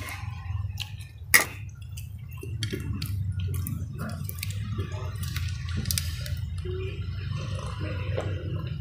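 Close-miked eating sounds of a person eating noodle soup with meatballs: wet slurps, chewing and small clicks, with a sharp knock about a second and a half in and drinking from a cup near the end, over a steady low hum.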